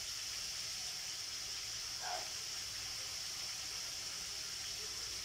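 Pork slices frying in hot oil in a steel wok, a steady sizzle.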